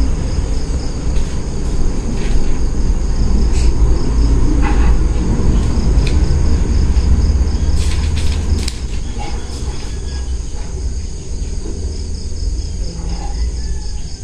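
Steady high-pitched insect chirring over a low rumble, with a few short paper rustles as the pages of a book are turned.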